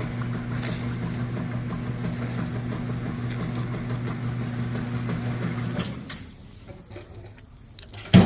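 Motor of a 2005 Roper direct-drive washing machine running with a steady electric hum under test, stopping about six seconds in. A single sharp knock near the end.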